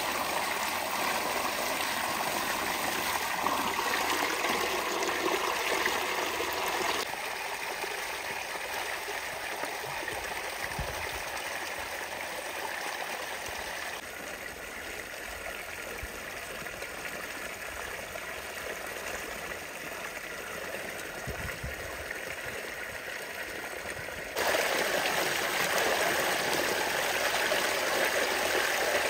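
Water gushing from a hose and splashing into a concrete trough as offal is rinsed under it, a steady rush of water. It drops abruptly to a softer splashing about seven seconds in and jumps back to a louder gush near the end.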